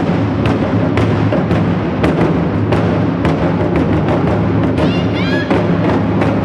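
Japanese taiko drum ensemble playing together: deep drum strokes in a steady beat, about two a second.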